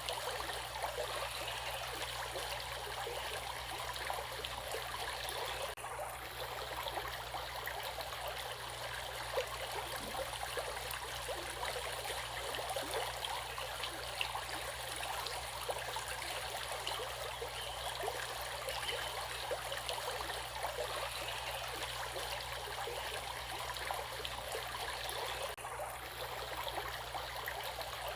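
Running water of a stream or river, flowing steadily.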